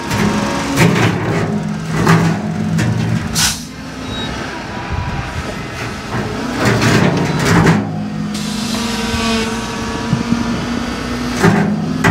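LiuGong wheel loader's diesel engine running under load while its bucket works at a buried rock in hard, dry ground, with several short, loud knocks and scrapes over the engine.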